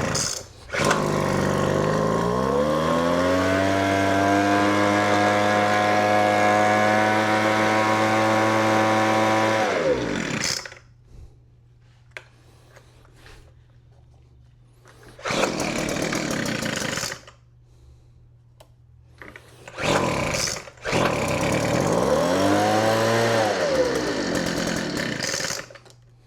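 Weed Eater FB25 25cc two-stroke blower engine pull-started on choke, catching about a second in and climbing in pitch to a steady run before dying about ten seconds in. It is a freshly repaired blower, with a new primer bulb, fuel lines and spark plug, coming back to life. Later there is a short burst, and then the engine runs again for several seconds, revving up and back down once before cutting off.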